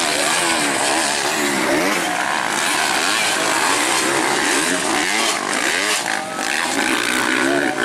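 250cc motocross bikes racing, several engines at once, their pitch rising and falling again and again as the riders open and close the throttle.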